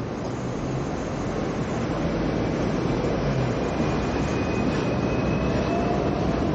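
Hong Kong double-decker tram running along its street tracks, heard from the upper deck: a steady rumble of wheels and motor with wind hiss, growing slightly louder, and a faint thin high whine from the rails from about two seconds in.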